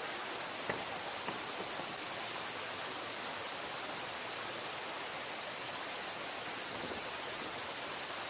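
Water of the Sorgue rushing steadily over a small weir, a continuous hiss-like rush. A couple of faint clicks come in the first second and a half.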